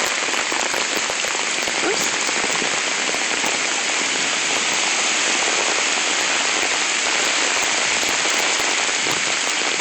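Heavy hurricane rain falling steadily, a dense even hiss of downpour.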